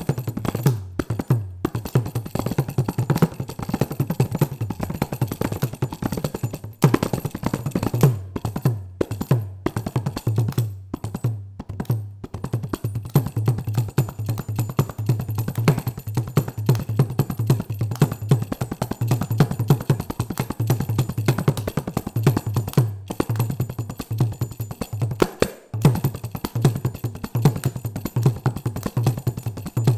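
Solo kanjira, the South Indian frame drum with a single pair of jingles, played with the fingers and palm: fast rhythmic strokes over a deep ringing bass tone. A few short pauses break the playing in the first dozen seconds, then it runs on as a dense, unbroken flurry.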